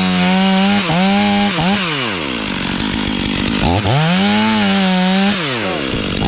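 Two-stroke chainsaw revved up to a high, steady full-throttle pitch, held for about a second and a half, then let fall back to idle. It is revved again about four seconds in and dropped near the end.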